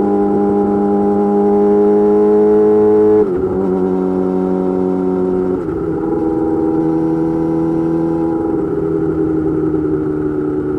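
Yamaha YZF-R6 inline-four sport bike running through an M4 GP slip-on exhaust under way. The engine note climbs a little, then drops sharply three times, about three, five and a half and eight and a half seconds in, as the bike shifts up through the gears.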